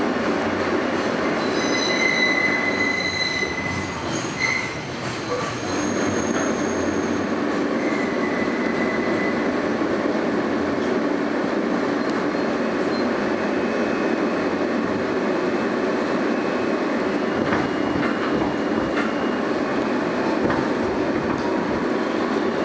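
Inside an R160A subway car in motion: a steady rumble of wheels and running gear on the rails. High-pitched wheel squeal sets in a second or two in, lasts to about five seconds, and comes back briefly around eight seconds.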